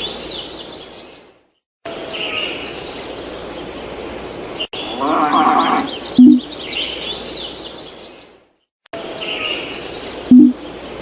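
Farmyard sound effects: birds chirping and twittering with a farm animal bleating about five seconds in, broken twice by short silences. Two brief, loud low tones sound about six and ten seconds in.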